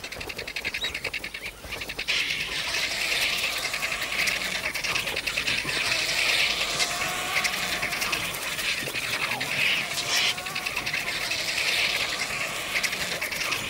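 A crowd of vultures squabbling over a carcass: a steady, dense din of harsh hissing and chattering calls, with a few wavering squeals.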